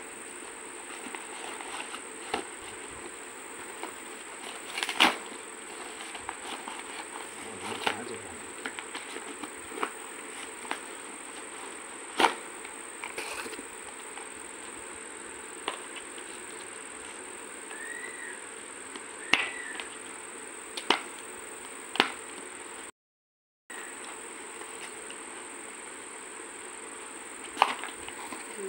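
Cardboard box and product packaging being handled and opened, with sharp crackles and taps every few seconds, over a steady high-pitched whine. The sound cuts out completely for about half a second near two-thirds of the way through.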